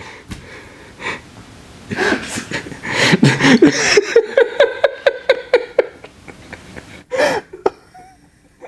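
A man laughing hard: a few drawn-out, breathy voiced sounds, then about two seconds of quick, evenly spaced laugh pulses, about six a second, dying down to a short burst and quiet breaths near the end.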